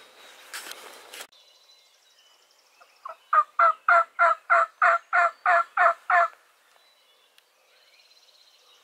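Rustling footsteps through brush for about the first second. Then a run of about eleven loud, evenly spaced turkey yelps, about three a second, lasting some three seconds.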